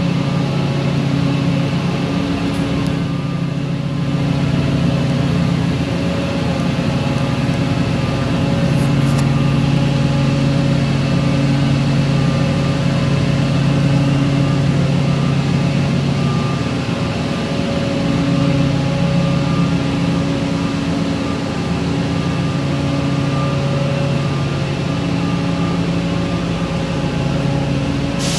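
Mesh belt tempering and annealing furnace line running: a steady industrial machinery hum with several held tones that swell and ease slowly every few seconds.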